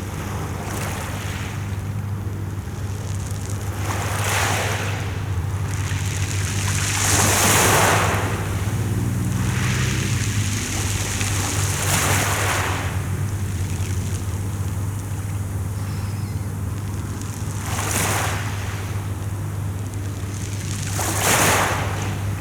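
Sea waves breaking and washing on the shore, surging every few seconds, with the loudest surges about 7 seconds in and near the end. A steady low hum runs underneath.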